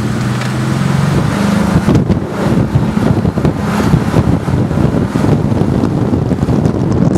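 Strong wind buffeting the microphone, a loud crackling rumble. A steady vehicle engine hum sits under it for the first two seconds or so.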